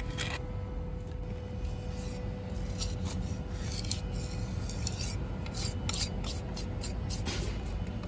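Steel pointing trowel scraping and smoothing freshly mixed rapid-set repair mortar into a concrete kerb: a series of short scraping strokes, more frequent in the second half, over a steady low rumble.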